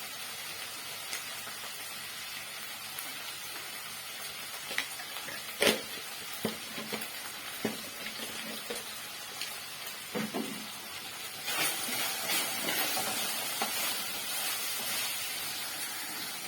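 Pork frying in oil in a pan, with a steady sizzle. About five and a half seconds in there is one sharp knock, the loudest sound, followed by a few lighter knocks as the meat is stirred. The sizzle grows louder about two-thirds of the way through.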